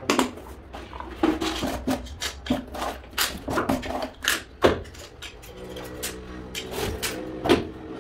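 Quick, sharp clicks and knocks of red plastic tile-levelling clips being handled and pushed against the edges of large porcelain floor tiles. A steady hum of several tones comes in during the last few seconds.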